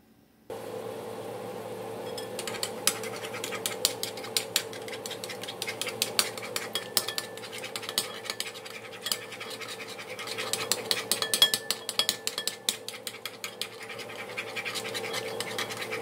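Eggs being beaten in a bowl: a utensil clicking and scraping rapidly and unevenly against the bowl. A steady low hum comes in about half a second in.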